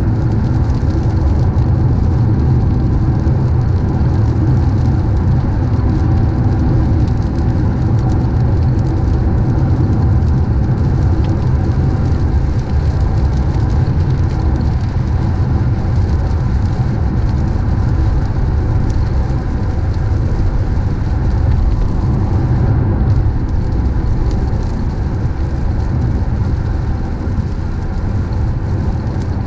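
Steady low rumble of a moving car heard from inside the cabin, tyres hissing on a wet road.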